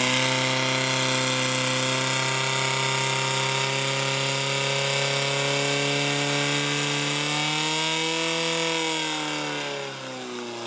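Portable fire pump engine running flat out, pumping water through the attack hoses. Its pitch holds steady, climbs a little near the end, then drops as the engine is throttled back.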